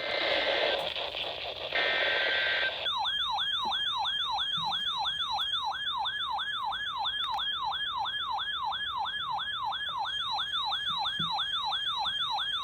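Warbling siren-style emergency alert attention tone, sweeping up and down about two and a half times a second and heralding a tornado warning. It comes in after about three seconds of radio hiss.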